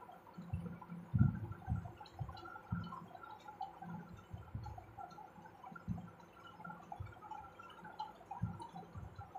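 Thin flour batter of cornflour and wheat flour being mixed with water: soft, irregular wet squelches, about one or two a second.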